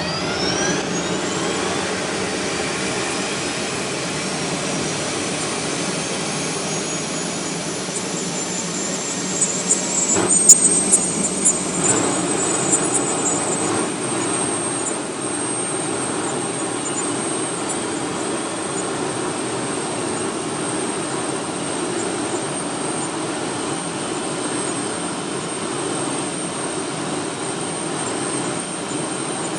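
F-16 fighter jet's turbofan engine spooling up on start: a rising whine that levels off into a steady high-pitched whine over a constant rush. A cluster of sharp pops and crackles comes about ten to thirteen seconds in, then the engine runs on steadily.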